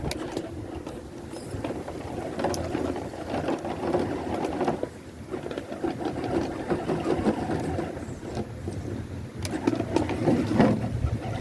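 Electric 64T motor and geared drivetrain of a 1/10 scale RC rock crawler whirring as it crawls, the whir rising and falling with throttle, with a few sharp clicks.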